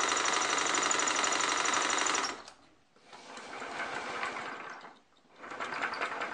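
A cordless drill runs with a steady whine, driving a wooden piston air engine that pumps air to a second wooden air engine; it cuts off about two seconds in. Then a small wooden single-cylinder air engine clatters rapidly in two spells of about two seconds each, run by air blown by mouth into its inlet.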